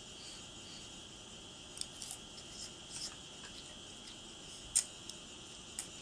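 A quiet stretch with a steady high-pitched hum and a few light clicks and taps, two or three close together about two seconds in and a sharper one near the five-second mark.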